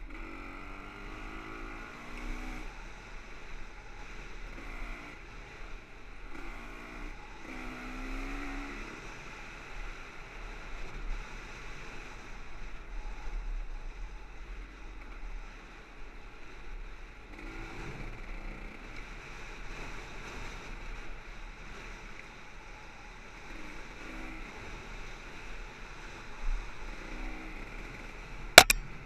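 Dirt bike engine heard from onboard as the bike rides a trail, its pitch rising again and again as the rider opens the throttle, over a steady low rumble of wind on the microphone. A sharp click near the end.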